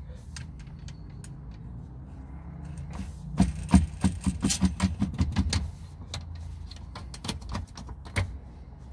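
A quick run of light clicks and knocks, about five a second for a couple of seconds, then a few scattered single clicks, as the rear pull-out drawer's thumb screws and rail fittings are worked by hand. A steady low hum lies underneath.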